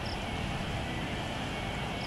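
Twin-engine jet airliner on final approach for landing, its engines heard as a steady low noise.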